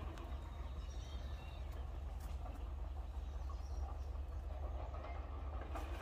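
Outdoor farm ambience: a steady low rumble with a few short, high bird chirps, the clearest about a second in.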